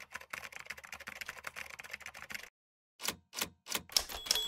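Typewriter sound effect: a rapid clatter of keystrokes, a half-second pause, then about six separate, louder key strikes, with a bell ding near the end.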